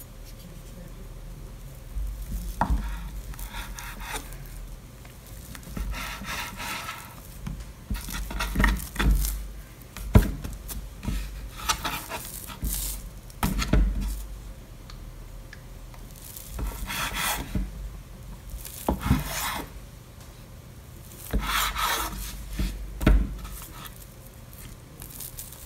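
Soft bread dough being worked on a wooden cutting board: hands folding and pressing the dough, and a knife cutting through it into portions. Irregular rubbing and rustling, with a few dull knocks of the knife or hands on the board.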